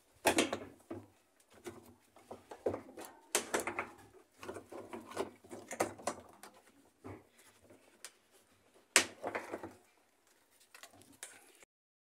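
Plastic parts of a top-loading washing machine being handled and worked loose, making irregular clatter and knocks. The loudest is a single sharp knock about nine seconds in, and the sound stops abruptly near the end.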